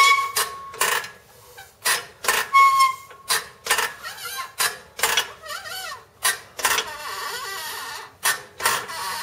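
Hydraulic floor jack pumped by hand to raise a lower control arm and compress an uninflated air bag: a run of sharp clanks and creaks about two a second, some with a brief squeak. A short steady hiss about seven seconds in.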